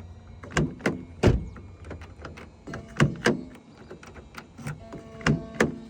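Door locks of a 2021 Nissan Rogue clunking as they are worked, several sharp thunks mostly in quick pairs every two to three seconds, as a newly cut key is tested.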